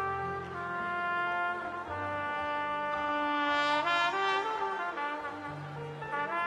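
Solo trumpet playing a slow worship melody of long held notes over a sustained low accompaniment, climbing to its loudest, highest note about four seconds in.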